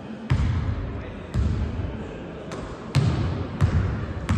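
A basketball being dribbled on a painted wooden gym floor: about six bounces at an uneven pace, each a low thud that echoes through the hall.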